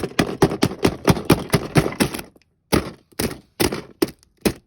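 Taped packaging being torn and peeled open: a rapid run of crackling snaps for about two seconds, then five separate sharp crackles.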